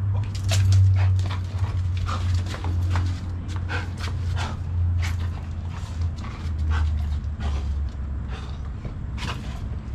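Irregular light taps and clicks of a dog's paws and a man's flip-flops moving on a concrete driveway, over a steady low hum.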